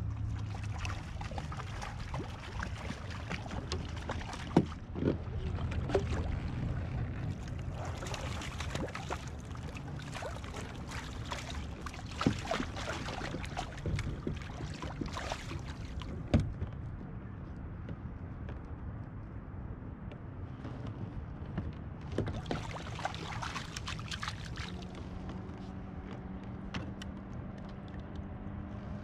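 Water splashing and trickling around a kayak while a hooked fish is fought and netted. A few sharp knocks of gear sound along the way.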